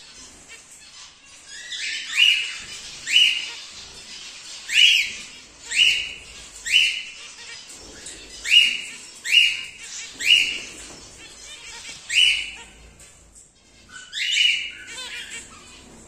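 Young emerald cockatiels calling: about ten loud, harsh rising calls, roughly one a second, with a short pause before the last one.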